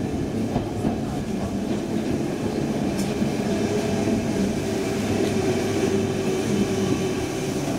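Stockholm Metro C14 subway car running, heard from inside the passenger cabin: a steady rumble of wheels on the rails with a faint hum over it.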